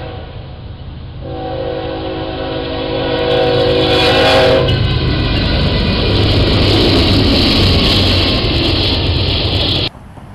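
Freight diesel locomotive's multi-note air horn sounding: a blast ends just at the start, and after a pause of about a second a long blast runs until about four and a half seconds in. Then comes the loud rumble of the diesel locomotives passing close by, with wheel clatter on the rails, which cuts off abruptly near the end.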